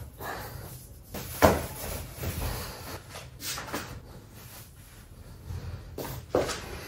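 Clothing rustling as a snug long-sleeve shirt is pulled on and a knit beanie put on, with two sharp knocks, one about a second and a half in and one near the end.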